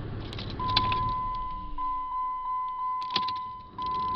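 Ignition keys jingling and clicking, with a steady electronic warning tone from the car that pulses about three times a second. There is no cranking: the starter does not engage.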